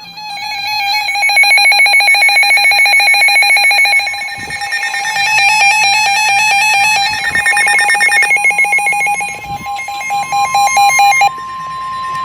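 Several NOAA weather radios alarming at once for a severe thunderstorm warning: loud overlapping electronic beeping and warbling that cuts off suddenly about 11 seconds in. Over the last few seconds a single steady tone joins it and keeps sounding after the beeping stops: the 1050 Hz weather radio warning alarm tone that comes before the voice message.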